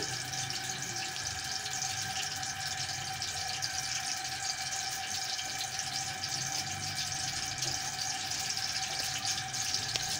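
Steady hiss with a faint, thin steady hum beneath it, unchanging throughout.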